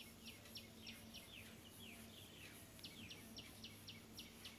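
Faint bird chirping in the background: short high chirps repeating about four times a second, broken in the middle by a quicker jumble of falling notes, over a faint low hum.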